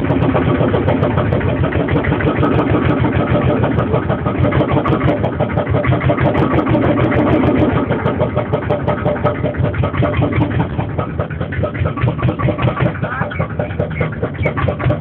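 An engine running with a rapid, even chugging, easing somewhat about eight seconds in.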